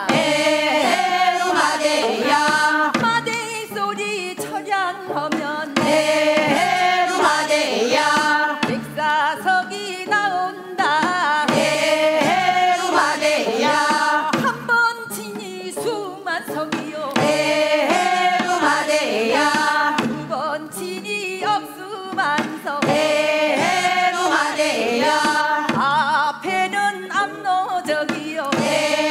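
Gangwon-do folk work song sung in traditional Korean style by male and female voices, over a regular beat of sharp percussive strikes.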